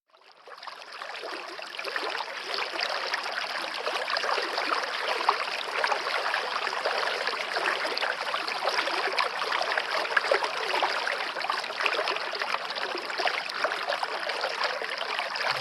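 Running water of a stream, trickling and babbling steadily, fading in over the first couple of seconds.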